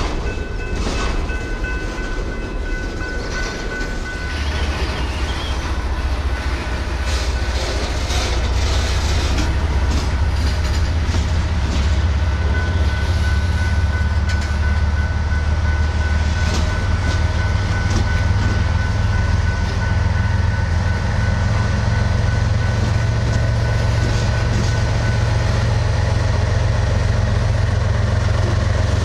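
Freight train rolling slowly past, its cars clicking and rattling over the yard track with a thin, steady high squeal from the wheels. A mid-train Canadian Pacific diesel locomotive working as distributed power draws near, and its engine's steady low drone grows louder from about four seconds in.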